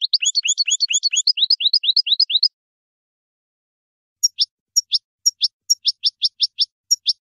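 European goldfinch singing: a fast twittering run of rising notes that stops about two and a half seconds in, then after a short pause a looser series of separate, sharp, high notes.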